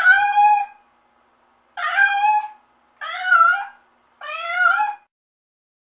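Domestic cat meowing four times, each meow short and separate, under a second long.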